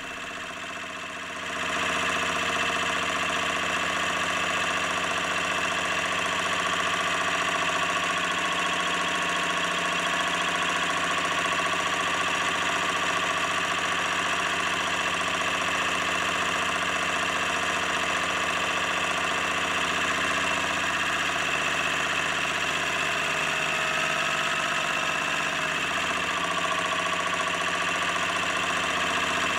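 Rhombic-drive Stirling engine running steadily, louder from about a second and a half in, with a steady whine over the mechanical running noise. The engine runs very rough: its moving masses still need serious balancing.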